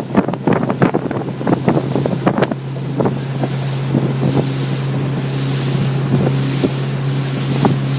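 Motorboat engine running steadily at speed, with wind buffeting the microphone. Sharp slaps of the hull on the water come thick and fast for the first couple of seconds, then only now and then.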